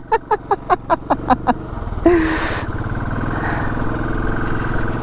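A motorcycle engine is started about two seconds in, with a short sharp starter burst, then idles steadily. Before it, in the first second and a half, comes a quick run of short voice-like bursts, about five a second.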